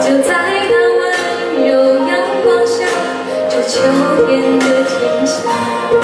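A woman singing a slow Mandarin Chinese ballad into a microphone over a recorded backing track, with long held notes.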